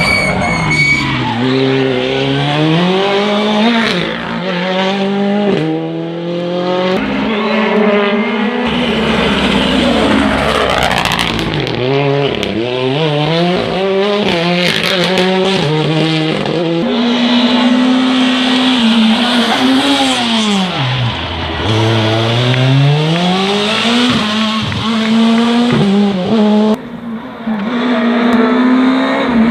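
Rally car engine being driven hard: it revs up through the gears with quick drops in pitch at each shift. About two-thirds through it falls away to a low note and then climbs hard again, with stretches held at high revs.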